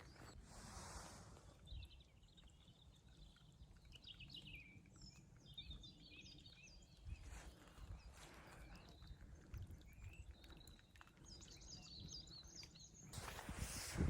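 Faint songbird chirps and short trills, several phrases in a row, over a low steady rumble of wind on the microphone. A louder rustle of footsteps starts near the end.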